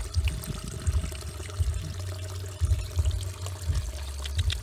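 Water pouring and trickling, over irregular low thuds.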